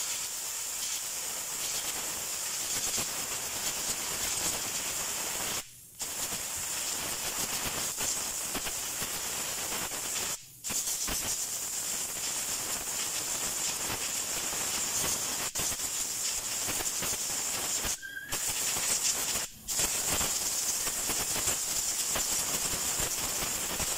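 Compressed-air blow gun hissing steadily as it blasts dust out of a car's pleated cabin air filter. The air cuts off briefly four times where the trigger is let go.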